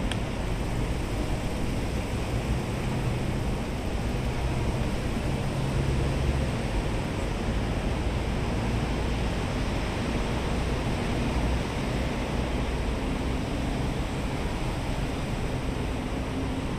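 Steady outdoor ambience: an even rushing hiss with a low rumble underneath and no distinct events.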